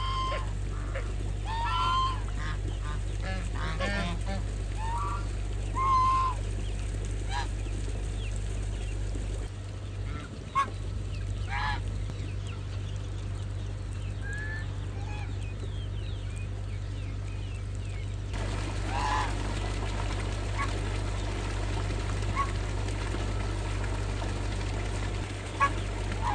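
Geese honking: a run of calls over the first several seconds, then scattered single calls, over a steady low hum.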